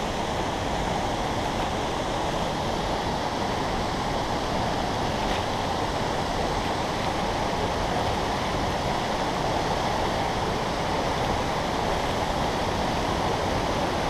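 Steady rushing water from a waterfall and the shallow rapids of the rocky stream below it, an even unbroken roar.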